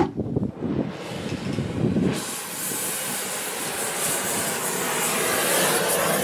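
Oxy-fuel torch flame hissing as it heats a steel scraper-pan sideboard to shrink it. A steady, full hiss starts abruptly about two seconds in, after some lower, uneven noise.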